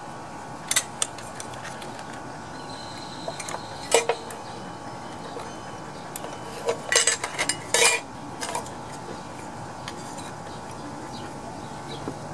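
Honda engine's plastic air cleaner housing knocking and clicking against the engine's metal parts as it is twisted into place by hand. A strong knock comes about four seconds in, then a quick cluster of clicks and rattles around seven to eight seconds.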